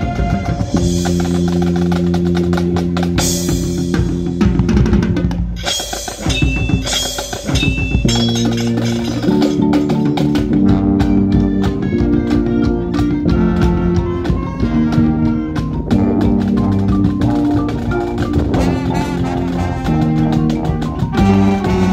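Marching band playing: long held chords over drums at first, a brief break about six seconds in, then snare and bass drums and mallet percussion keep a steady rhythm under changing held chords.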